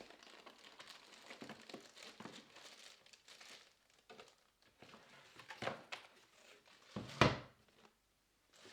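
Plastic packaging crinkling and rustling in uneven handfuls as a boxed charger is unwrapped, with one louder crunch about seven seconds in.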